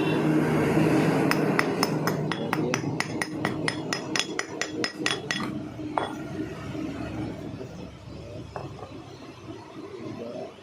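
A hammer tapping quickly on metal, about five light strikes a second for around four seconds, then one last knock.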